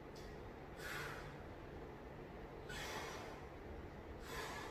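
A man breathing hard from the effort of flutter kicks: three faint, hissy breaths, one every second and a half or so.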